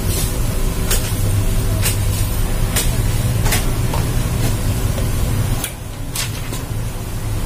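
A steady low mechanical hum with sharp clicks about once a second; the hum falls away about three-quarters of the way through.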